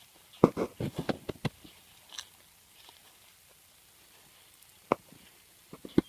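Crunchy clicks and knocks from footsteps in dry grass and a foam box being carried and set down. A fast run of them comes between about half a second and a second and a half in, with one more sharp click near five seconds.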